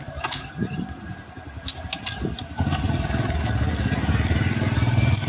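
A vehicle engine running, with a few light clicks and rattles at first. About two and a half seconds in, its low pulsing rumble gets much louder and then holds steady.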